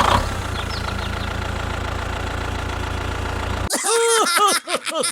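A small engine runs steadily with a low, even hum, cutting off suddenly a little over three and a half seconds in; a baby then giggles and laughs.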